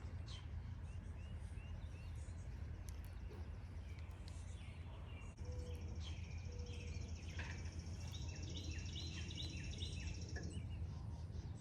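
Birds chirping and singing: a short series of chirps near the start, a high buzzy trill from about halfway in, and a run of repeated song notes near the end, over a steady low rumble.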